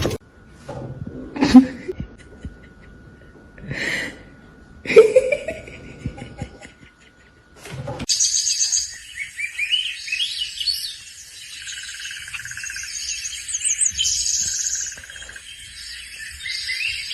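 A few scattered knocks and thumps, then from about eight seconds in, birds chirping busily and continuously.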